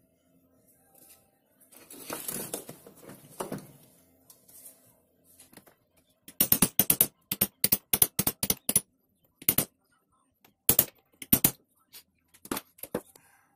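Small metal engine parts handled on a V-50 moped engine during assembly: a rustle and scrape about two seconds in, then a quick run of sharp metallic clicks, about five a second, and a few separate clicks and clinks toward the end.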